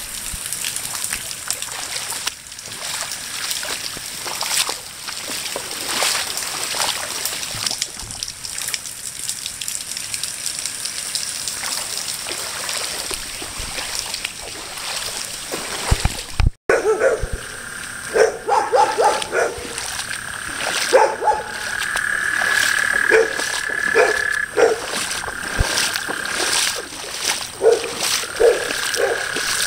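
Rain falls and spatters on shallow floodwater. After a short break about halfway through, frogs call over it, a steady high chorus with repeated croaks.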